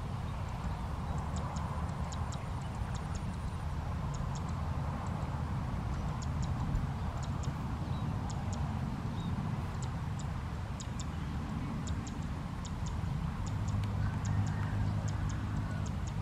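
Open-air field ambience: a steady low rumble with a scatter of faint, irregular high ticks.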